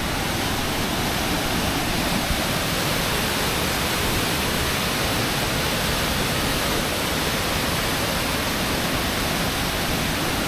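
Mountain torrent cascading down a waterfall through a narrow rocky gorge: a loud, steady, unbroken rush of water.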